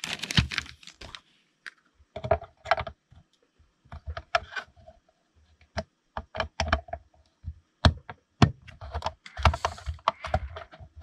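Hard plastic parts of a G.I. Joe Retro Cobra HISS toy tank clicking and knocking in an irregular run of taps as the canopy hood is fitted onto the hull.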